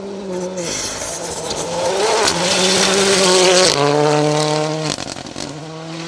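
Ford Fiesta Rally2 car's turbocharged four-cylinder engine at full throttle on gravel, with a loud hiss of spraying gravel. The engine note breaks off briefly twice. The car is loudest about three and a half seconds in, where the note steps down.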